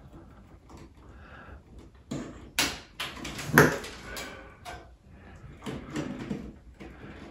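Scattered knocks, clicks and scrapes from a screwdriver and hands working a chandelier's ceiling canopy and fixing screws, the loudest about halfway through.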